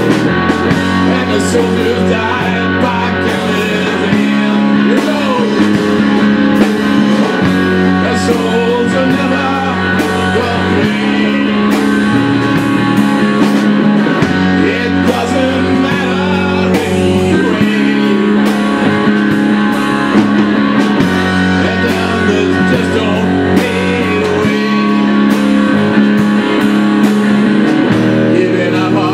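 Live rock band playing: two electric guitars and a drum kit, over a low repeating riff that steps between notes every second or few.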